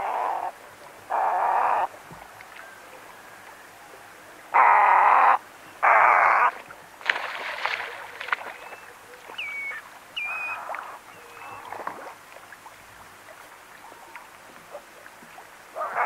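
Western reef heron giving harsh, croaking calls, four loud ones in the first seven seconds and shorter ones later, with a splash about seven seconds in. Thin whistled calls of a redshank come between them. Running water and a faint hiss lie underneath.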